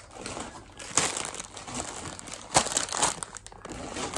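A grocery bag and its packaging crinkling and rustling as hands rummage through the groceries, in irregular bursts, the loudest about two and a half seconds in.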